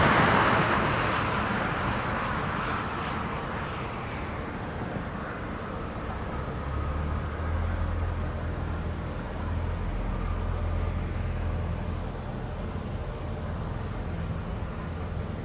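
Jet airliner engines, loudest at the start and fading away over the first few seconds as the aircraft moves off, then a steady low rumble.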